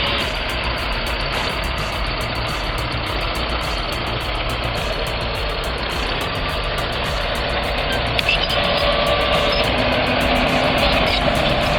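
Engine of a heavy earthmoving machine running steadily, getting somewhat louder from about eight seconds in.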